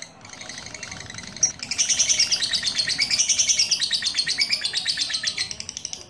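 Lovebird chattering: a fast, unbroken stream of high, rapid chirps that swells loud about two seconds in and eases off near the end, with a single sharp click just before the swell.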